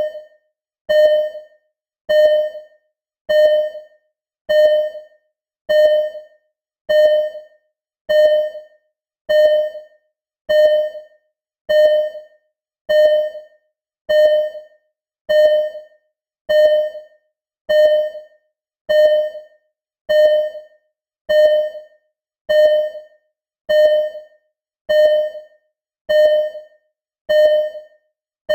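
Simulated hospital ECG heart-monitor beep: a short, mid-pitched electronic beep that fades quickly and repeats evenly about once every 1.15 seconds, a steady pulse of roughly 50 beats a minute.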